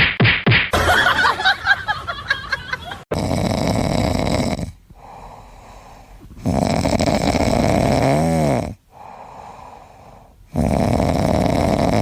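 Loud snoring, three long rasping breaths in, about three and a half seconds apart, with quieter breathing out between them. It follows a few seconds of short, mixed clattering sounds at first.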